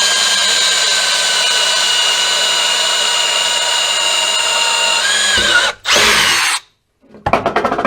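Electric drill running steadily as it bores a quarter-inch hole through PVC or ABS pipe, a high steady whine whose pitch wavers about five seconds in before the drill stops. A quick rattle of clicks follows near the end.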